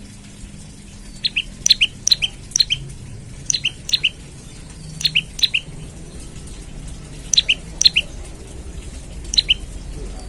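Prenjak lumut giving short, sharp high-pitched chirps, each a quick two-note drop, in small bursts of two or three every second or two.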